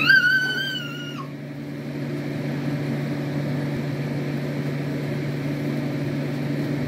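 A steady low hum, like a household appliance or fan running. It is broken about a second in by one brief high-pitched squeal that rises, holds and dips slightly as it ends.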